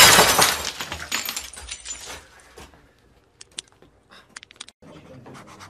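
A soda can dropping through a vending machine: a loud clattering crash that dies away over about two seconds, followed by a few light clicks.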